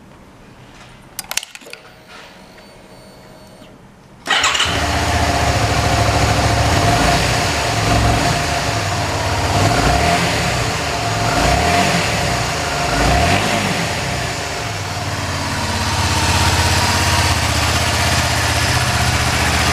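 A Honda VTR250 Fi V-twin motorcycle engine, breathing through its stock muffler, is started: a few clicks, then about four seconds in it fires up at once. It gets a few short throttle blips around the middle, then settles into a steady idle.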